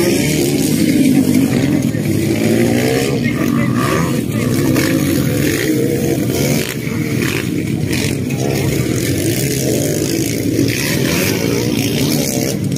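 Several motocross bikes racing, their engines revving up and down as they accelerate and shift.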